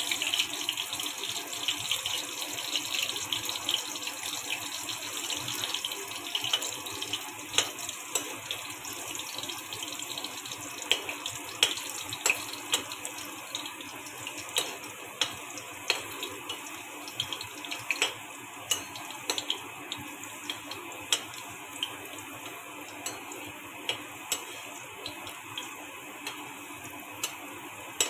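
Chopped green chillies sizzling in a little hot oil in a kadai, a steady frying hiss that eases over the stretch. From about a third of the way in, sharp clicks come more and more often.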